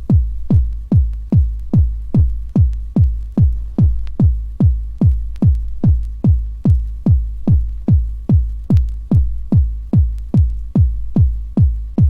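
Techno track opening on a bare four-on-the-floor kick drum: about two kicks a second, each one dropping in pitch, over a faint steady hum.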